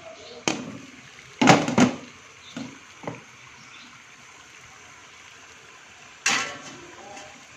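Clatter of a glass being set into a steamer pot over boiling water: a knock, then a louder double clatter, two lighter taps, and after a pause a last sharp clank with a short ringing tail. A low steady hiss of the boiling water runs beneath.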